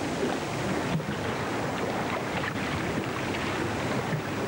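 Sea water washing and splashing: a steady rushing noise with fine crackles and small splashes through it.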